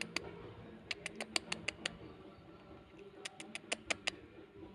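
Quick runs of sharp clicks, several a second, coming in two bursts of about a second each with a few more right at the start.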